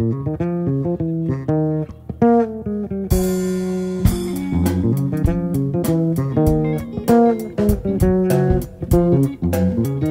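Live jazz-funk band playing instrumentally: electric bass and electric guitar lay down a syncopated riff. About three seconds in the drums come in with a cymbal crash, then keep a steady beat under the riff.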